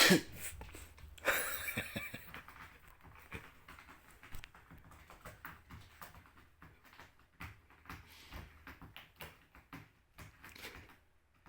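A person's loud sneeze right at the start, with a second loud burst of noise about a second later, then scattered light taps and scuffles of a startled cat's paws as it scrambles away, thinning out near the end.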